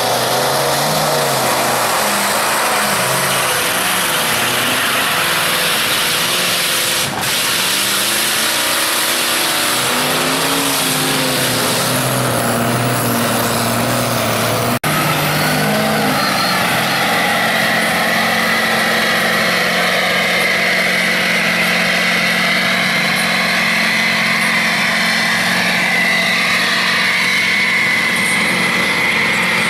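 Lifted pickup truck engines revving hard while driving through a mud pit, the engine note rising and falling. About halfway through the sound cuts to a steadier, held engine note at high revs.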